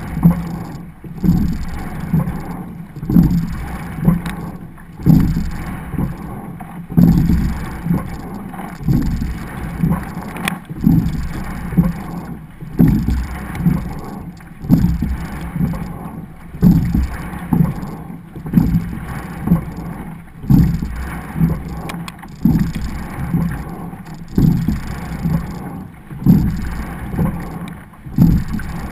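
A double sculling shell being rowed at race pace: water rushing and splashing at the hull and oars, surging with each stroke about every two seconds.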